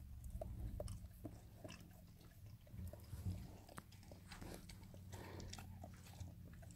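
Springer spaniel mother licking and chewing at her newborn puppy, still in its birth sac, to clean it: faint, irregular wet smacks and small clicks.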